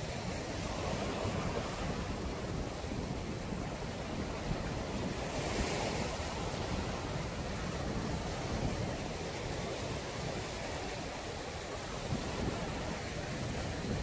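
Small waves breaking and washing up a sandy beach in a steady hiss, with one brighter, hissier wash about six seconds in. Wind buffets the microphone with a low rumble throughout.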